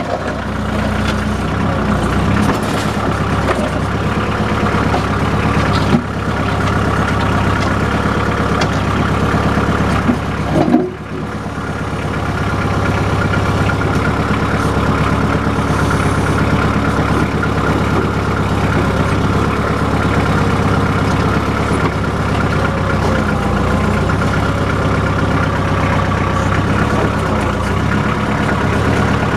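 Backhoe engine running steadily under load as the machine works a large quartz boulder loose, with a brief dip about eleven seconds in.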